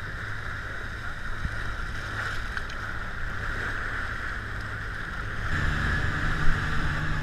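Speedboat running at speed, a steady engine drone under the rush of water and spray along the hull. About five and a half seconds in the engine grows louder, and a second later there is one sharp thump.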